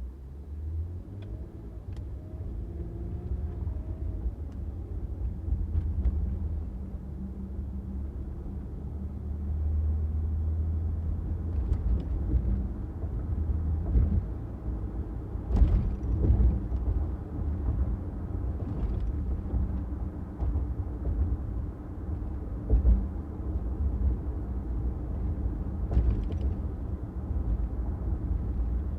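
Car driving: a steady low rumble of engine and road noise. There is a faint rising whine in the first few seconds, and a few short sharp knocks around the middle and near the end.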